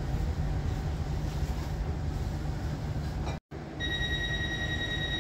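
Train running with a steady low rumble. About three and a half seconds in, the sound cuts out for a moment, then the rumble returns with a steady high-pitched tone over it.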